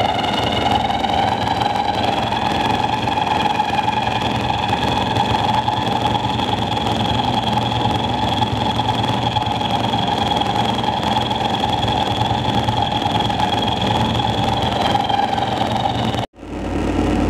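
Live harsh noise: a dense, steady wall of electronic noise with high whining tones held over a rumble. About sixteen seconds in it cuts off abruptly, and a low hum swells up in its place.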